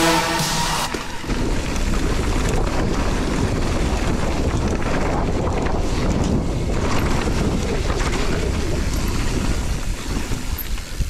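Wind rushing over the microphone and mountain bike tyres rolling over a dirt trail strewn with leaves, a steady noisy rumble with a few short knocks from the bike over bumps. It fades down near the end.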